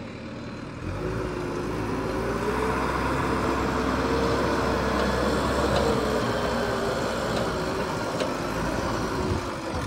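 JCB 3DX Super backhoe loader's diesel engine working under load as the front loader pushes a big log. It revs up about a second in, with a whine that rises and falls in pitch and eases off near the end.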